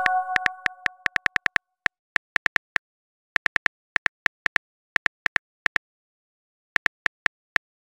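Smartphone keyboard click sound effect: many short, sharp taps in irregular quick runs with pauses between, like a text message being typed. A message chime rings out and fades over the first second or so.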